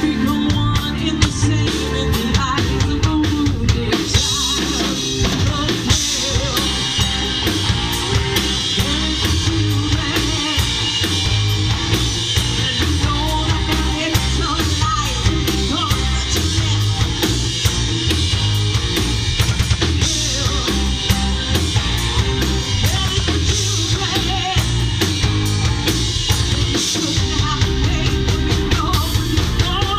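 Rock band playing a cover song: drum kit with bass drum and snare driving a steady beat under bass guitar, electric guitar and keyboards.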